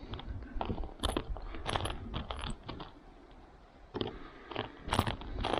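Small metal driver bits clicking and clinking as they are handled and sorted through, with sharp irregular clicks and rattles and a quieter pause about halfway.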